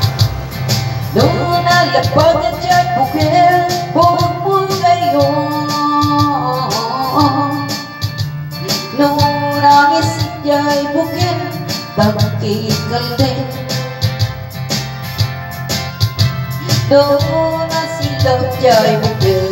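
A woman singing into a handheld microphone over backing music with guitar and a steady beat; her sung phrases begin about a second in.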